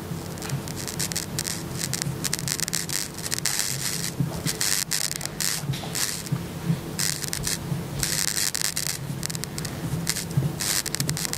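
Scratchy crackling from the volume potentiometer of an xDuoo TA-01 tube headphone amplifier as its knob is turned, coming in repeated bursts over a steady low hum: potentiometer noise.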